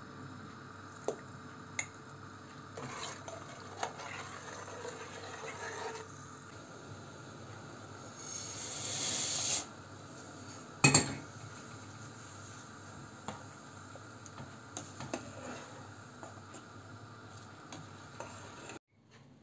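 Water boiling in a large stainless steel pot, with scattered light metal clicks. About eight seconds in there is a brief rushing hiss as rice is added, then a sharp metal clank against the pot, and later a spoon stirring the rice with small clinks.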